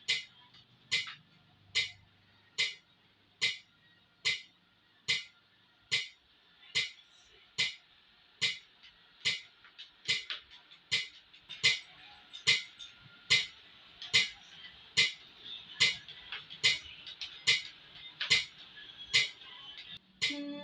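Metronome clicking steadily at about 72 beats a minute, keeping tempo for conducting practice.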